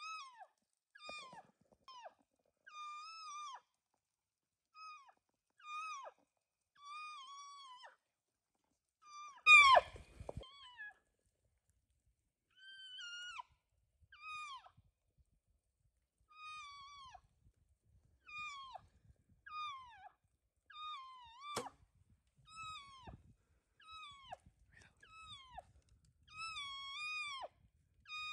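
Cow-elk mews: short, high, nasal calls that rise and then drop at the end, repeated about once a second, one much louder than the rest about ten seconds in. A single sharp click a little past twenty seconds.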